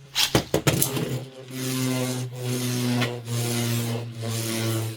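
Two Beyblade X tops, Blackshell and Unicorn Sting, battling in a plastic stadium. A few sharp clacks come in the first second, then a steady whirring hum with a grinding scrape that dips briefly about once a second.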